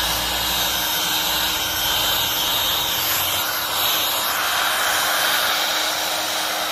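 Intex electric air-mattress pump running steadily, a motor whine over rushing air, blowing dust out of an open computer case.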